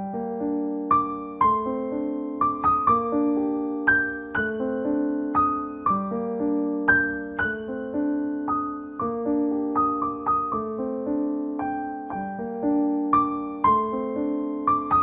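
Background music: a slow, gentle piano melody of single struck notes over held chords.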